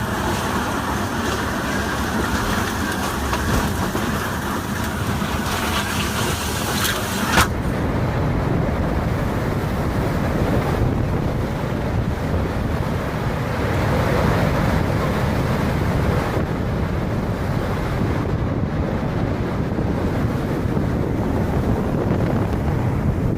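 Hurricane-force wind rushing and buffeting the microphone. About seven seconds in the sound cuts abruptly to a lower, rumbling wind noise.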